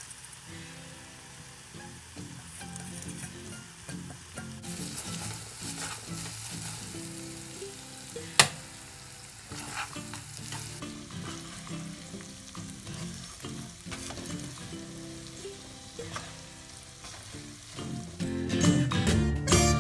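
Young cassava leaves and dried anchovies sizzling in oil in a wok while a wooden spatula stirs and scrapes them, with one sharp knock about eight seconds in. Music comes in near the end.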